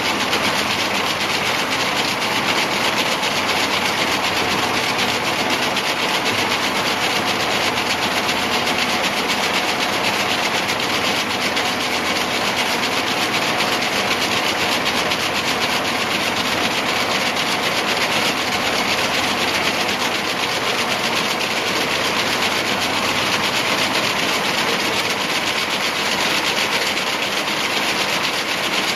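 Tex-Inter radial braiding machine running steadily, its ring of bobbin carriers making a continuous dense mechanical whir as it braids white fibre over a mandrel.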